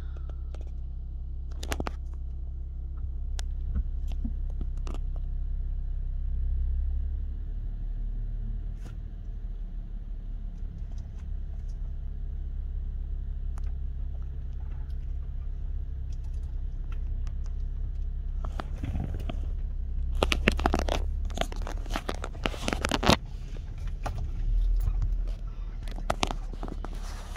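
Low, steady rumble of a car idling, heard from inside the cabin, with scattered clicks. About two-thirds of the way through comes a few seconds of crunching and scraping.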